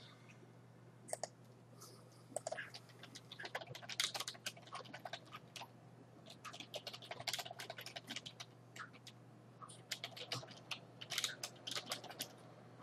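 Typing on a computer keyboard: faint key clicks in quick runs with short pauses between, starting about a second in.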